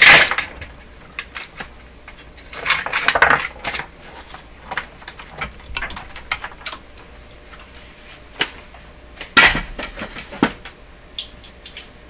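Objects and tools being moved and set down on a workbench: a sharp knock at the start, a short rattling clatter about three seconds in, scattered small clicks, and a loud knock about nine and a half seconds in.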